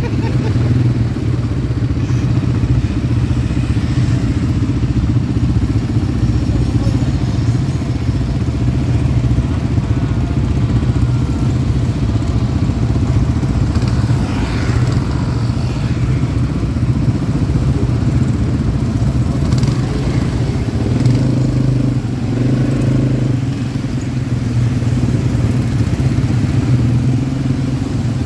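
ATV engine running steadily while under way, its note shifting briefly about three-quarters of the way through.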